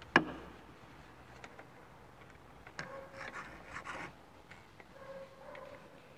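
Hand block plane with a bevel-up iron working the edge of a cumaru board: a sharp knock as it meets the wood near the start, then a few short rasping shaving strokes about three to four seconds in, cutting the board's reversed grain.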